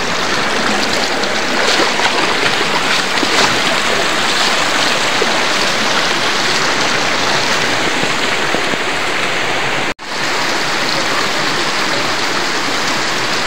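Water rushing and tumbling over rocks in a mountain stream, a loud steady rush close to the microphone, broken by a split-second dropout about ten seconds in.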